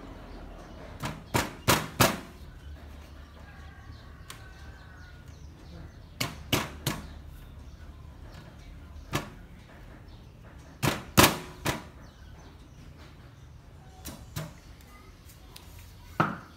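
A cleaver chopping through a papaya and striking a thick wooden chopping block: sharp knocks in groups of two to four, with pauses of a few seconds between groups.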